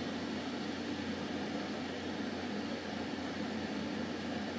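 Steady low hum of background room noise, with no other sound standing out.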